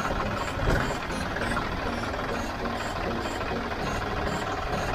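Diesel engines of two tractors, a Farmtrac 45 and a John Deere 5039D, running together while the John Deere pulls the Farmtrac and its cultivator out of the mud where it was stuck, with a brief louder surge about a second in.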